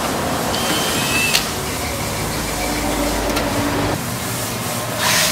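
Cordless drill whirring in short runs as it backs screws out of an old sheet-metal amplifier case. A short burst of noise comes near the end.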